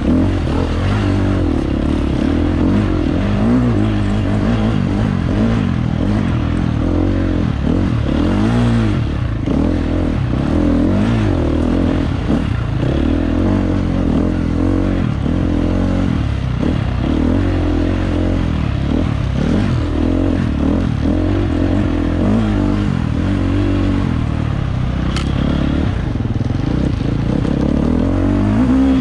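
Dirt bike engine running hard under the rider's throttle, its pitch rising and falling every second or two as it revs up and backs off.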